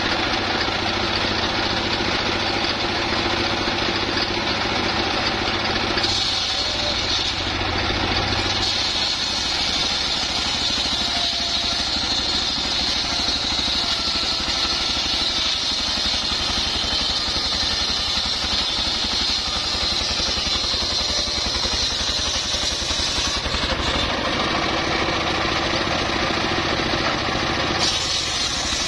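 Single-cylinder stationary diesel engine running steadily under load, driving a large circular saw blade that rips a log lengthwise. The saw's higher cutting noise runs over the engine, dropping away briefly near the end before returning.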